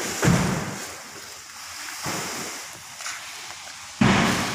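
Heavy woven sacks of candlenuts being thrown down onto a stack: three dull thuds, each with a short rustling tail. They come near the start, about two seconds in, and near the end, the first and last the loudest.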